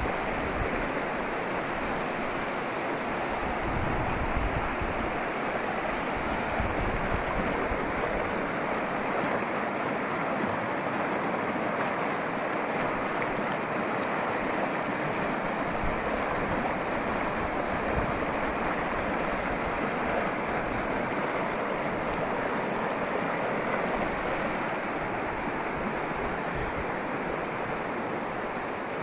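Shallow mountain river rushing and splashing over a rocky bed, a steady, even roar of running water.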